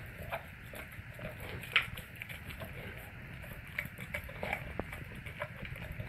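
Alaskan Malamute chewing raw beef ribs: a run of wet, irregular crunches and clicks of teeth on meat and bone, the sharpest crunch about two seconds in.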